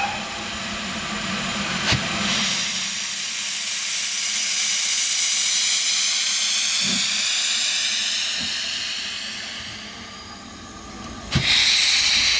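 GWR King class four-cylinder 4-6-0 No. 6023 venting steam: a loud hiss that swells over several seconds and then eases off. About a second before the end it starts again suddenly and loudly, with a sharp knock. A few faint knocks come in between.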